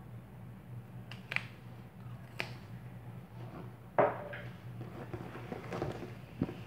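Small objects being handled and taken from a bag: two sharp clicks, a louder knock about four seconds in, then light tapping and rustling, over a steady low hum.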